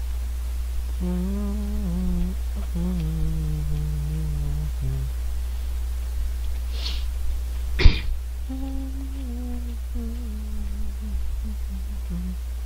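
A man humming a tune in two phrases of low, stepping notes, with a single sharp knock about eight seconds in, the loudest sound here. A steady low electrical hum runs underneath.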